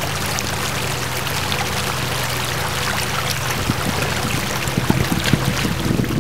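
Muddy water rushing and churning as it pours out of a concrete-block inlet and floods down a grassy field channel. It grows louder and more uneven in the second half.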